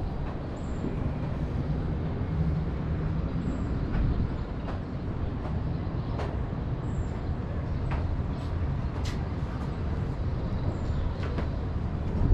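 Rail vehicle running: a steady low rumble with scattered clicks and knocks.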